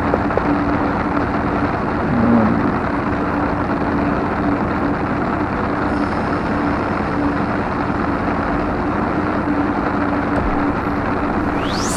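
Heavy rain falling on an umbrella overhead, a loud, steady patter, with the steady low hum of an idling ship's engine beneath it.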